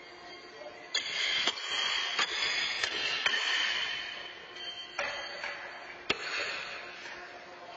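Steel horseshoes striking steel stakes and other shoes on the pitching courts: a scattering of sharp metallic clanks, roughly one every second, each ringing briefly and echoing in the large hall.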